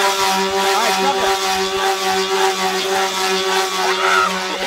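Angle grinder motor spinning a two-bladed helicopter rotor, running at a steady whining pitch over the rushing noise of the blades.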